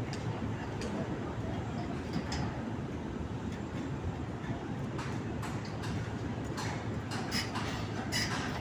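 Steady low rumble of heavy construction machinery, with scattered light knocks and clanks, several of them in the second half.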